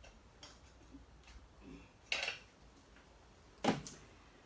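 Something being handled and set down on a work surface: a few small clicks, a short scrape about two seconds in, then a sharp knock near the end.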